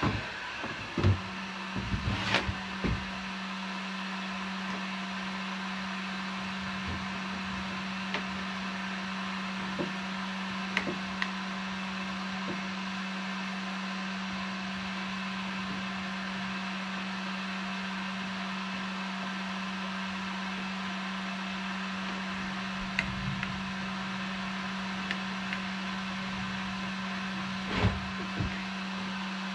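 Heat gun running steadily, a hiss with a constant hum, used to soften a plastic keel guard for forming to the kayak hull. A few light knocks and taps sound over it, several in the first three seconds and two more near the end.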